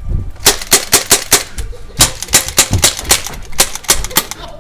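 Airsoft Beretta STTI pistol replicas fired rapidly from both hands: about twenty sharp cracks at several shots a second, with a short break around a second and a half in.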